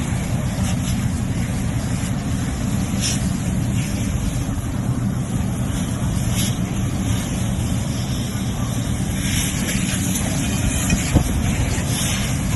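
A large fire burning: a steady low rumble with a few sharp pops, the loudest about eleven seconds in.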